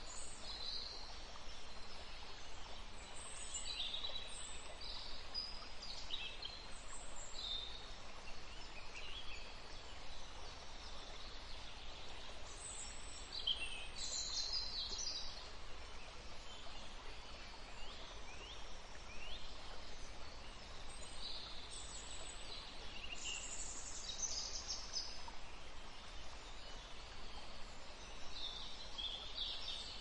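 Rainforest ambience: a steady, even hiss with scattered bird calls, short high chirps and whistles coming every second or two.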